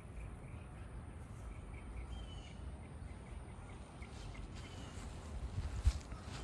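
Quiet outdoor background: a steady low rumble with faint, scattered bird chirps, and a single short knock near the end.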